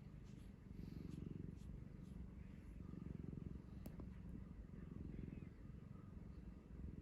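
Domestic cat purring, the low purr swelling and fading with each breath. A single sharp click about four seconds in.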